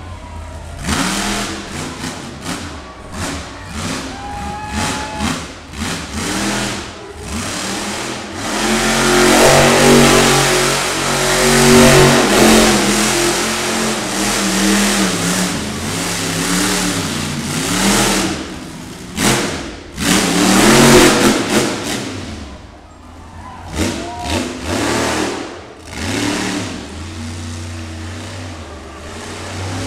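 Monster truck engine revving hard and repeatedly, its pitch rising and falling, with long loud full-throttle stretches about a third of the way in and again about two-thirds in.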